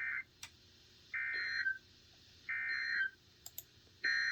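Emergency Alert System end-of-message (EOM) data bursts: short, harsh, buzzing digital screeches of SAME data, three of them about 1.3 seconds apart, following the tail of the previous one. These signal that the alert message has ended.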